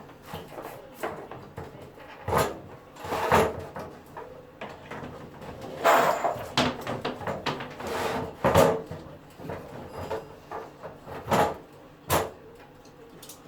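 Irregular knocks and clatter of a steel three-phase fuse board enclosure being handled, some knocks with a short metallic ring.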